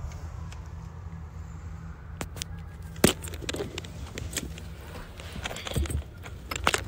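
Sharp clicks and knocks from handling in a pickup truck's cabin, the loudest about three seconds in and a cluster near the end, over a steady low hum.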